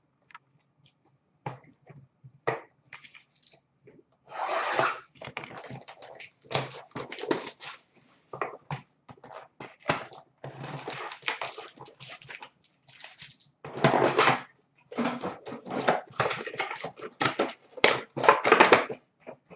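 Trading-card packaging being torn open and handled: a few light clicks, then from about four seconds in irregular bursts of crinkling and tearing wrapper and cardboard that come thick and fast.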